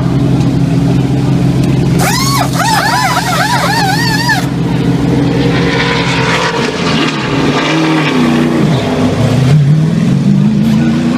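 NASCAR Xfinity Series stock-car V8 engines running during a pit stop, with a high warbling whine, air impact wrenches on the lug nuts, from about two to four and a half seconds in. After about six seconds the engine note swings up and down as the car pulls away, and it rises near the end.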